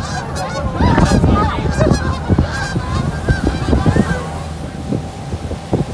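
A flock of Canada geese honking in flight overhead. Many short overlapping honks come thickest in the first few seconds and thin out near the end, over a steady low rumble.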